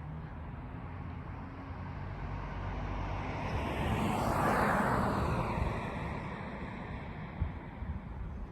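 A vehicle driving past, its noise swelling to a peak about halfway through and then fading away.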